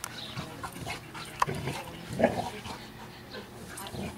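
A pug and a chocolate Labrador play-wrestling, with dog breathing and scuffling sounds. A sharp click comes about one and a half seconds in, and a short, louder dog vocal sound a little after two seconds.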